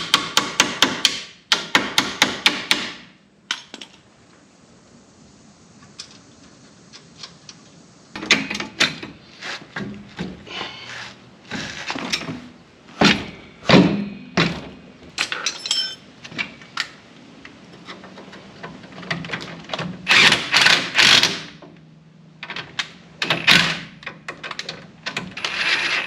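Hand ratchet clicking in quick strokes as a bolt is run in, then intermittent metal clanks and knocks of tools and suspension parts being worked at the wheel hub.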